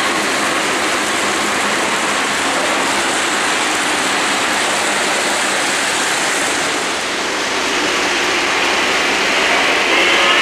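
O-gauge model trains running on three-rail track, a steady rushing noise of wheels and motors. A held tone of several pitches comes in near the end.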